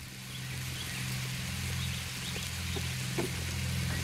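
A steady low hum, with faint sizzling and scattered small crackles from butter-fried mushrooms and onions in a cast-iron skillet over a wood fire.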